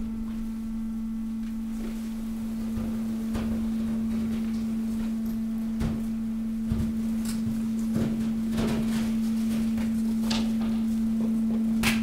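Hydraulic waste compactor working on mixed waste: a steady hum from its hydraulic power unit, with scattered cracks and snaps as plastic and cardboard are pushed and crushed.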